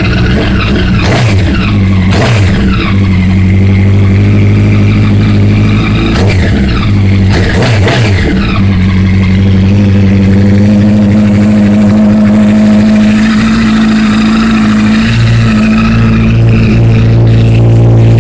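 2008 Honda CBR1000RR inline-four engine idling through a loud exhaust, revved briefly a few times, about a second in and again around six to eight seconds in.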